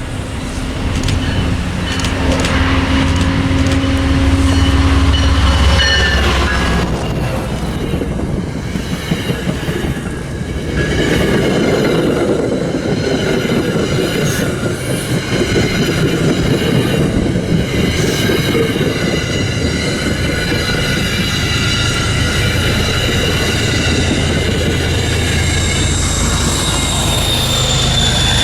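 Commuter train passing on the rails, with a low engine hum at first, then the cars rolling by with steady high-pitched wheel squeal.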